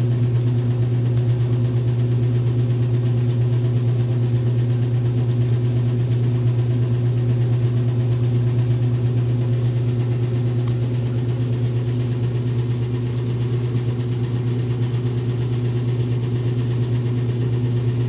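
1962 RCA Whirlpool LJA70 top-load washing machine running with a steady, loud motor hum.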